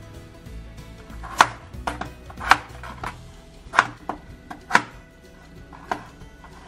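A kitchen knife slicing a peeled potato on a plastic cutting board. The blade strikes the board about eight times at an uneven pace, starting about a second and a half in.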